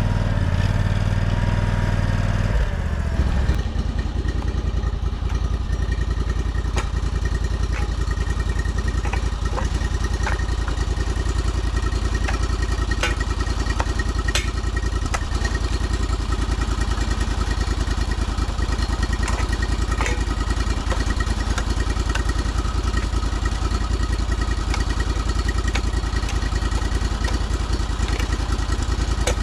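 Engine running steadily. Its note changes about three seconds in and then holds even, with scattered light knocks over it.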